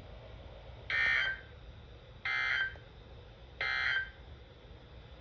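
Emergency Alert System end-of-message data tones: three short, raspy digital bursts about a second and a half apart, the SAME code signalling that the alert broadcast is over.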